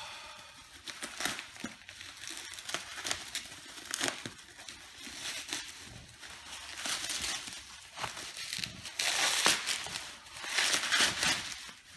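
Bubble wrap being pulled open and unwrapped by hand: plastic crinkling and rustling in irregular bursts, loudest and densest about three-quarters of the way through.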